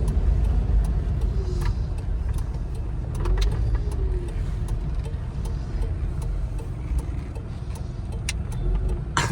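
Kia Picanto under way, a steady low engine and road rumble as it pulls off and drives through traffic.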